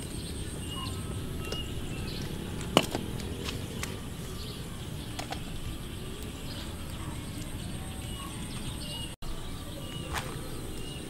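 Outdoor ambience with a low steady rumble. A bird chirps repeatedly in short high notes, near the start and again near the end. A single sharp knock comes about three seconds in.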